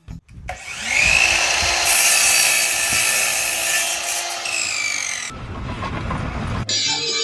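A power tool running under load: a steady whine over rasping noise for about five seconds, then a rougher, noisier stretch, giving way to music near the end.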